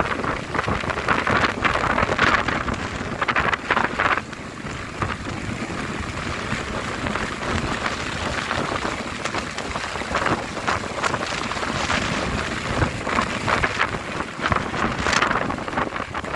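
Strong gusty wind buffeting the microphone, with rain falling; the gusts surge and ease unevenly.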